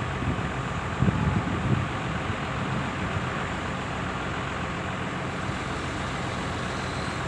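Heavy diesel engine running steadily, briefly louder about a second in.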